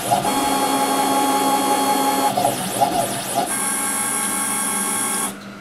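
CNC router's axis motors whining as the gantry is jogged from a handheld pendant in shuttle mode. They hold steady tones that shift pitch with the jog rate, sweep up and down for about a second in the middle, then settle at a new pitch and stop shortly before the end.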